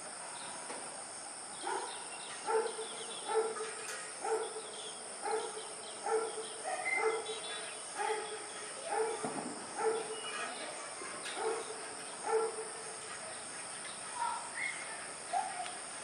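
A dog barking in a steady series, about one bark a second, over a constant high-pitched hiss of insects.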